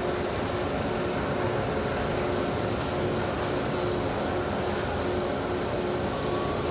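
Roller coaster chain lift hauling a loaded train up the lift hill: a steady mechanical clatter with a constant hum.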